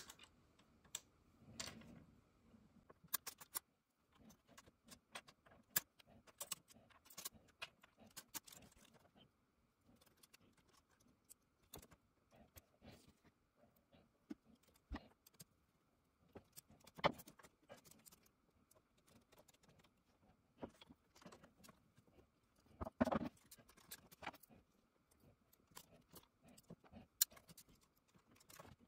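Scattered small clicks and light metallic rattles from an Aiwa AD-3150 cassette deck's transport mechanism as its parts are handled and worked on by hand, with a short cluster of louder knocks late on.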